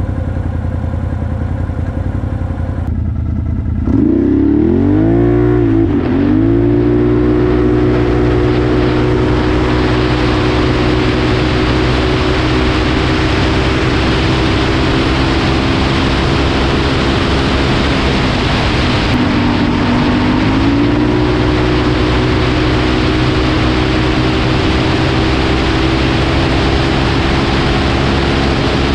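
Can-Am Renegade 1000R ATV's V-twin engine through dual Two Brothers exhausts. It runs low for the first few seconds, then from about four seconds in revs up hard under full throttle and holds high, near-steady revs as the CVT lets the speed climb past 130 km/h. The revs sag briefly about two-thirds of the way through and climb back, under heavy wind rush on the microphone.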